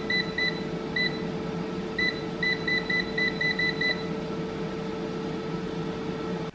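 Digital air fryer running with a steady fan hum while its touch panel gives short high beeps with each button press as the temperature and timer are set, about a dozen beeps over the first four seconds, the last several in a quick run.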